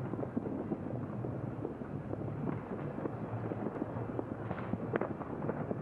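Fireworks crackling and popping heard from a distance: many small bangs in quick, irregular succession over a steady low rumble.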